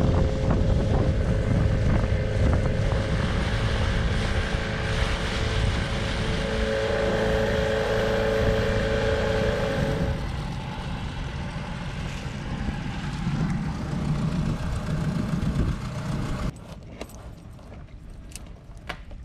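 Inflatable dinghy under way on its outboard motor: a steady motor drone with wind and water rush, easing off about ten seconds in. Near the end it drops to a quieter background with a few sharp metal clicks of a chain and padlock being handled.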